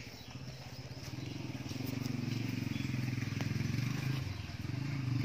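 An engine running steadily, with an even low pulsing hum that swells through the middle and again near the end.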